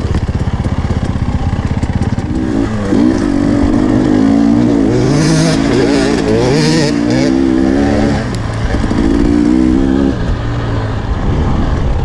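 KTM 300 two-stroke dirt bike engine revving up and down under hard throttle on a rough trail, easing off briefly about eight and ten seconds in. A burst of hiss runs for a couple of seconds about five seconds in.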